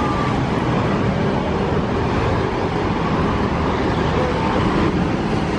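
Steady road traffic and engine noise, a low rumble with no single event standing out.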